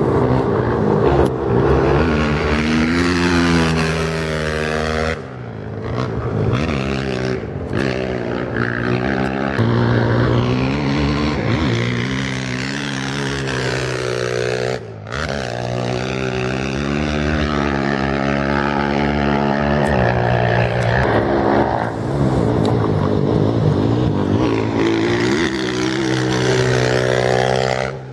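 Off-road race motorcycles accelerating hard away one after another, their engines revving up through the gears, the pitch climbing and then dropping at each shift.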